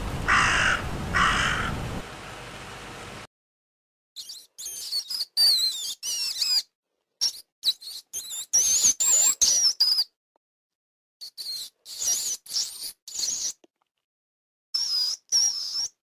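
A crow cawing twice near the start. Then a rat squeaking in short bursts of high, gliding squeaks and chirps, with silent gaps between them.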